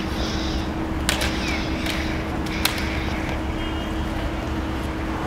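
Plastic lightsaber blades clacking together in a duel, two sharp clacks about a second and two and a half seconds in and a few fainter ones, over a steady city traffic rumble.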